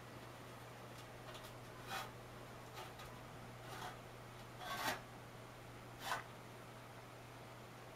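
Ceramic bowl scraping against a metal tin tray as a cat paws it round: a handful of short rasping scrapes, the loudest about five seconds in.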